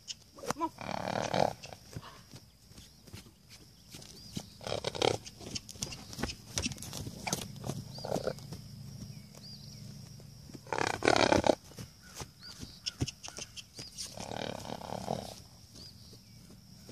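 Young Friesian Appaloosa cross horse moving loose around a round pen under saddle: hoofbeats on dry ground with several loud whooshing bursts spread through, the loudest about eleven seconds in.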